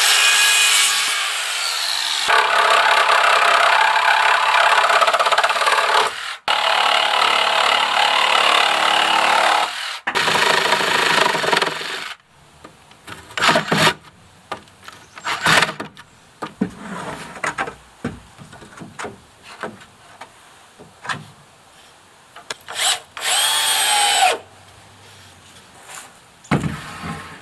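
Power tool working lumber in several loud, sharply cut stretches over the first twelve seconds. Then come scattered knocks and clatter of wood being handled, with one more brief motor spin-up and wind-down near the end.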